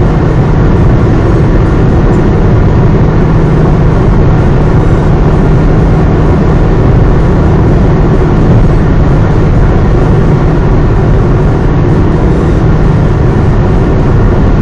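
Car running on the road, heard from inside the cabin: a steady engine hum under constant road and tyre noise.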